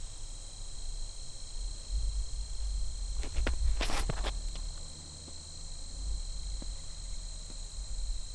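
Steady high insect chorus, crickets, throughout. About three to four seconds in, a few quick scuffing footsteps on a concrete tee pad and a sharp swish as a disc golfer steps through and throws a forehand drive.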